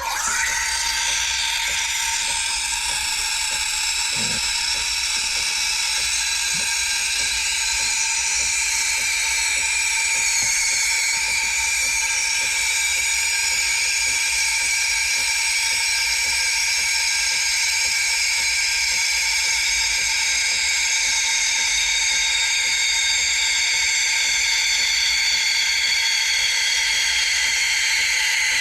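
De'Longhi espresso machine's steam wand frothing milk: a steady hiss that comes on abruptly, with a high, many-toned whistling screech over it whose pitches drift slowly lower.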